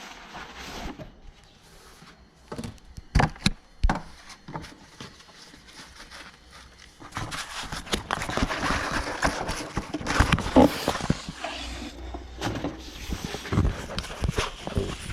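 Handling noises: scattered knocks and clicks, then from about halfway a busier stretch of rustling and clicking.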